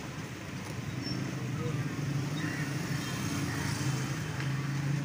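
A motor vehicle engine running, a steady low hum that grows louder about two seconds in.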